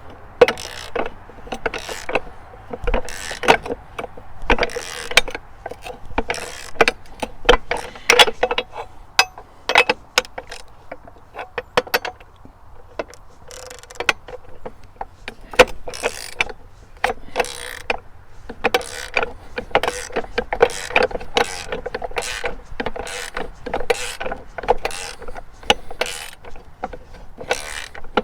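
A wrench tightening the mounting nuts of a steel chainsaw carrier on a tractor loader tower. There are irregular runs of sharp metallic clicks and clanks, with a ringing metal tone behind them.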